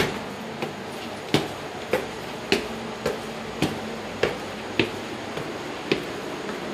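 A person's footsteps walking at an even pace, a little under two steps a second, each a sharp click; the first step, right at the start, is the loudest.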